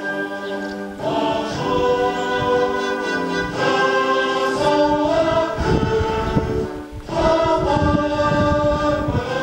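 A choir singing sustained, solemn phrases, with a short pause about two-thirds of the way through. A low rumble of wind on the microphone joins about halfway.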